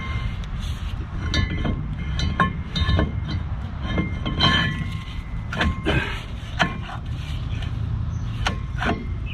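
Irregular sharp metal clanks and clinks, several with a short ringing tone, from handling a heavy steel brake rotor and its bolts as it goes onto the truck's front hub, over a steady low rumble.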